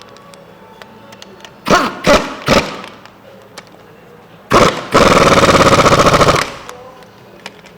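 Pneumatic impact wrench driving a bolt into a screw pump's cartridge plate: three short bursts about two seconds in, then, about five seconds in, a second and a half of continuous rapid hammering as the bolt is run down.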